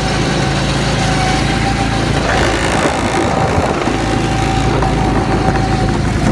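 Go-kart engine running steadily, heard close up from the kart's seat, with its note shifting a little in the middle.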